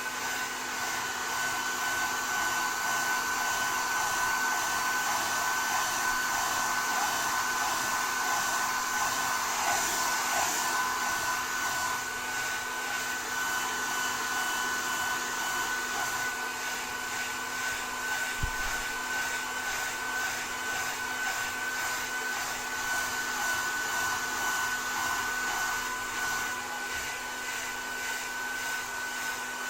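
Hair dryer blowing steadily: a continuous rush of air with a steady high whine over it. A brief low bump comes about two-thirds of the way through.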